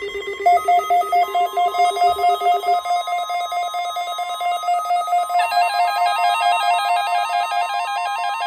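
Weather-radio alert signal for the NOAA Weather Radio required weekly test: rapid electronic beeping with a steady high tone under it. A lower beep drops out about three seconds in, and the sound turns harsher about five seconds in.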